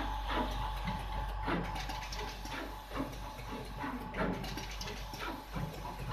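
Desktop SMT pick-and-place machine running: its placement head's motors driving the head back and forth, with irregular clicks as it picks and places parts, over a steady low hum.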